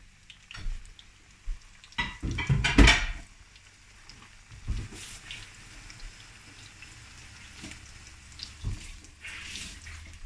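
Coconut-breaded shrimp frying in hot oil with a faint sizzle. A short, loud clatter of kitchenware comes about two to three seconds in, with a few lighter knocks later.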